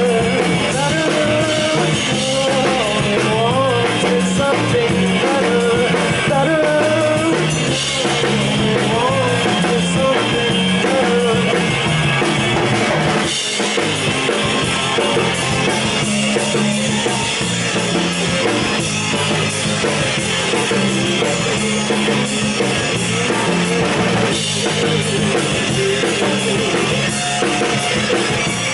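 Live rock band playing an instrumental passage: drum kit, bass and electric guitars, with a melody line bending up and down over the first ten seconds or so. The music drops back briefly about 13 seconds in, then carries on.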